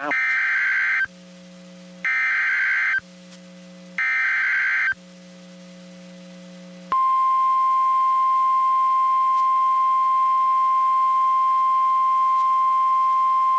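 Emergency Alert System signal on NOAA Weather Radio, announcing a severe thunderstorm warning. Three bursts of about one second each of SAME digital header data tones, then about seven seconds in the single steady 1050 Hz weather-radio alert tone begins and holds.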